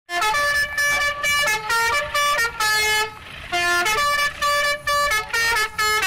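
A tune played in short, buzzy, horn-like notes that step up and down, like a musical horn. It comes in two phrases with a brief break about three seconds in.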